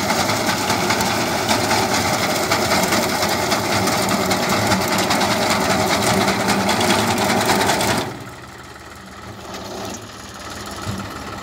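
Massey Ferguson 1035 DI tractor's three-cylinder diesel running at working speed, driving a front-mounted wheat reaper whose reciprocating cutter bar and conveyor give a fast, dense clatter. About eight seconds in the sound drops sharply to a quieter engine running alone.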